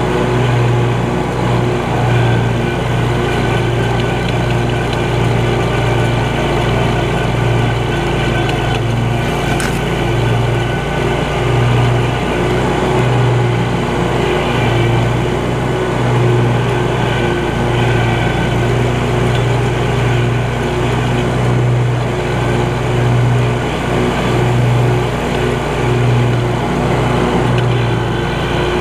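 Scag Cheetah 52 zero-turn mower's engine running steadily, a loud low hum that holds an even pace throughout.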